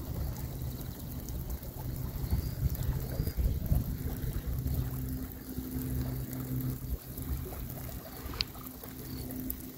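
Wind rumbling and buffeting on a phone's microphone by an open river, with a faint steady low drone in the middle and a brief high chirp near the end.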